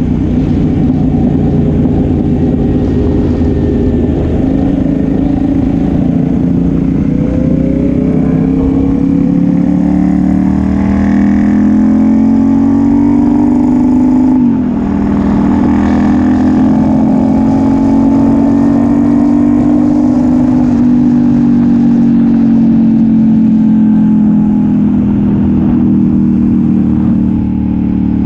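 Sport motorcycle with an aftermarket exhaust under way. The engine note climbs steadily under acceleration, drops sharply at an upshift about halfway through, holds, then slowly falls as the throttle is eased, over a steady rush of wind.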